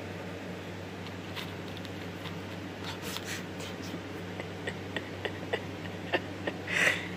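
Quiet bedroom with a steady low hum, a few faint small clicks in the second half, and a short breathy puff of air near the end that is the loudest sound.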